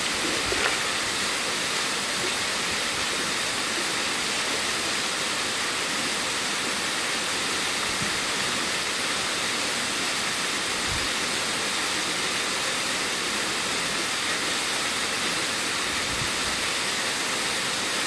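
Steady rushing of a waterfall cascading down rock into a pool.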